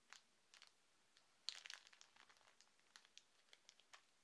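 Faint crinkling and small clicks from a clear plastic bag of sequins being handled, with a sharper crackle about a second and a half in.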